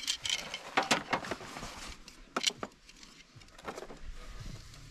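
Gear being handled: a handful of sharp clicks and clattering knocks spread over a few seconds, as the electric boat pump and its battery leads are picked up and readied.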